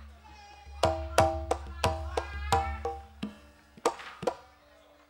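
Gamelan accompaniment for ketoprak theatre: a run of about ten sharp drum and struck-metal strokes, several leaving ringing pitched tones, starting about a second in and thinning out after four seconds.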